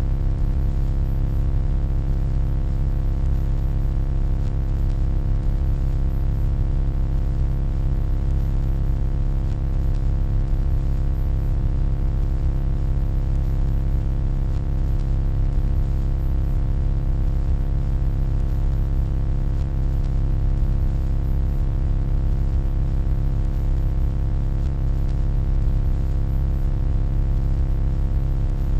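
Steady electronic hum, deep and unchanging, with faint constant higher tones layered over it.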